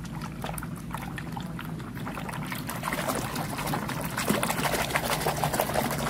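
Soapy water sloshing and splashing in a plastic basin as a hand scrubs a toy underwater, the splashing getting busier and louder about halfway through.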